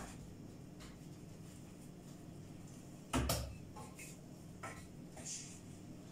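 Quiet kitchen handling at a countertop: a single dull thump about three seconds in, with a few faint knocks and clicks around it.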